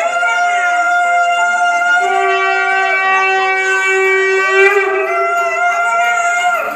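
Conch shells (shankha) blown in long held notes, with the pitch sliding where a note starts or ends; the blowing stops just before the end.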